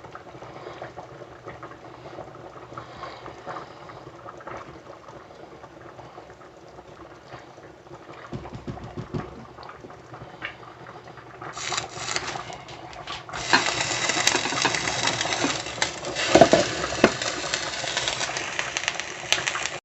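Pot on the stove bubbling at the boil. It is faint at first with a few small clicks, then grows loud and crackly over the last six seconds before cutting off abruptly.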